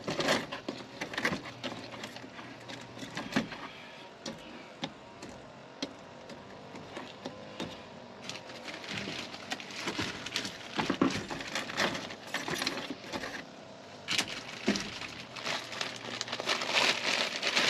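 Plastic water bottles being handled and set into a soft-sided cooler bag: crinkling of the bottles' plastic shrink-wrap with light clicks and knocks as bottles are pulled out and placed. The handling comes in spells, busiest near the start and again over the last several seconds.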